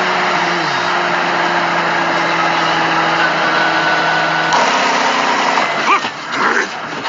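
A steady engine-like drone with a few held pitches. The pitch changes abruptly about four and a half seconds in, and a few short voice-like sounds come near the end.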